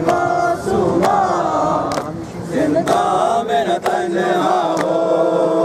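A crowd of men chanting a mourning nauha in unison, holding long notes, with a sharp chest-beating slap of matam about once a second keeping the beat.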